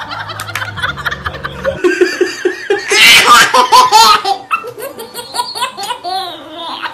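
A baby laughing in repeated bursts of belly laughs and giggles, starting about two seconds in and loudest around the middle.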